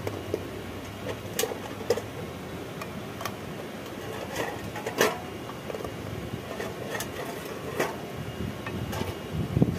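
Eggs set one by one into an aluminium pan of water, each landing with a short sharp click against the metal or the other eggs, about one tap every second, over a steady background noise.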